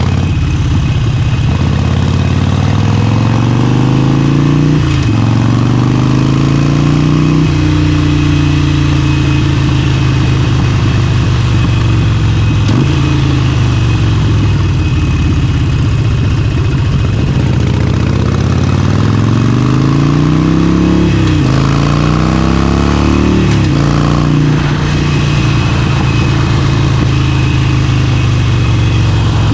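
Harley-Davidson Forty-Eight's air-cooled 1200 cc V-twin engine pulling hard under way: the engine note climbs, drops sharply at each gear change, then holds steady at cruising speed. It climbs through two gears near the start, and there is a quick run of shifts after about twenty seconds.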